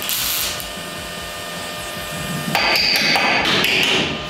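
Welding at the base of a steel roll-cage pillar: the steady crackle of the arc, giving way about two and a half seconds in to louder, uneven metal-working noise with a brief high ring.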